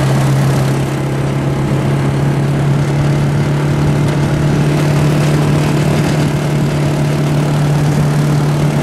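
Quad bike engine running at a steady, unchanging speed while towing a garden trailer: a constant hum over a rough background noise.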